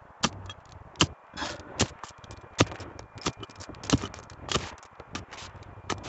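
A small hand digging tool chopping and scraping into dry, grassy soil, about ten irregular strokes, as a metal-detector target is dug out.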